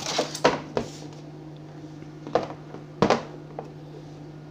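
Handling noises as a wireless microphone receiver and its styrofoam packing are lifted out of a cardboard box: a few sharp knocks and rustles, the loudest about half a second in and about three seconds in, over a steady low hum.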